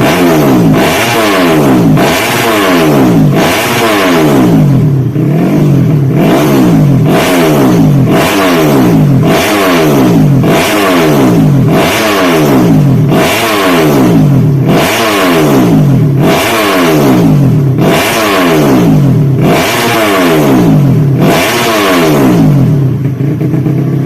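Modified 130cc underbone motorcycle engine being revved over and over, its pitch climbing sharply and dropping back roughly every second and a half, then running more steadily near the end.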